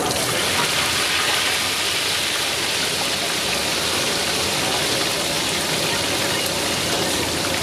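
Chicken pieces deep-frying in a large iron kadai of hot oil, which sizzles in a steady hiss.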